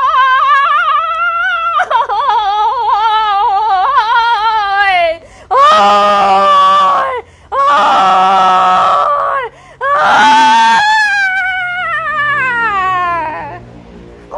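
A woman wailing and screaming in long high-pitched cries. A wavering wail runs for about five seconds, then come three loud screams about two seconds apart, and one long cry falling in pitch near the end.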